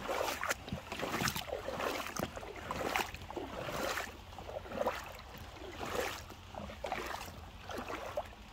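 Footsteps wading through shallow seawater on a tidal flat: irregular sloshing splashes, one every half second to a second, over a low steady rumble.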